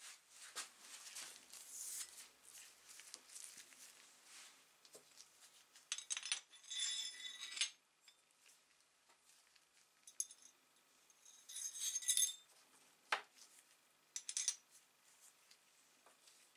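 Small metal parts of a Graco hand pump clinking and scraping as they are handled and threaded together onto the pump rod and handle. Two louder rasping bursts and one sharp click about two-thirds of the way through.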